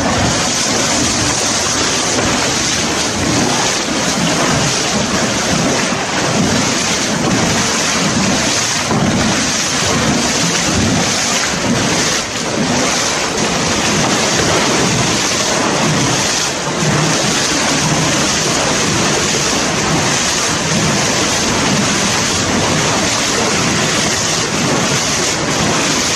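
Loud, steady rush of water spraying and splashing across a concrete floor.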